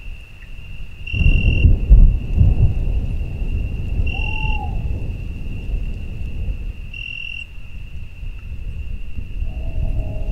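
Thunderstorm ambience: a low rolling rumble of thunder with a steady high insect-like trill that swells about every three seconds. A few sustained music notes come in near the end.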